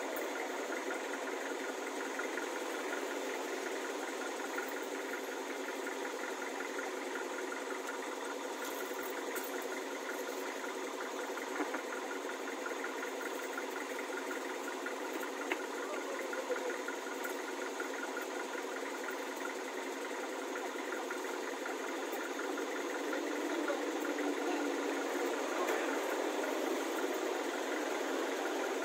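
A steady engine-like drone with no change in pitch, growing a little louder in the last few seconds, with a few faint clicks.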